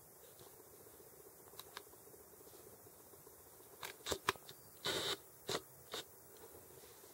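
Adult cat licking a newborn kitten's fur: about five short rasping tongue strokes starting around four seconds in, one of them longer than the others.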